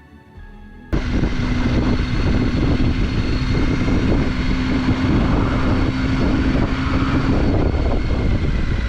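Triumph Tiger 800 motorcycle riding at road speed: its three-cylinder engine running with a steady note under heavy wind noise on the microphone, cutting in suddenly about a second in.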